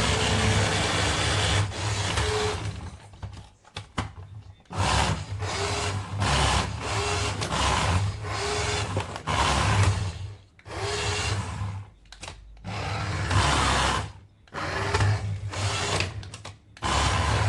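Small electric motor of a radio-controlled toy whirring in repeated short bursts, switched on and off about a dozen times, with a brief rising whine as it spins up.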